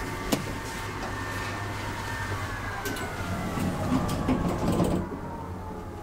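The car of a 1992 Schindler hydraulic elevator running with a steady hum, with a sharp click about a third of a second in as a car button is pressed. A tone slowly falls in pitch through the middle, and the background hiss drops away near the end.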